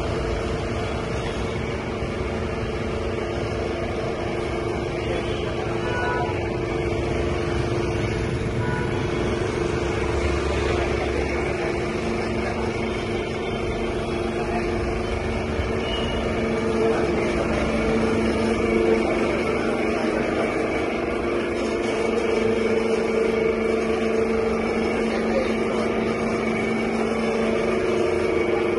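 Street traffic noise with a steady droning hum throughout, without break or sudden event.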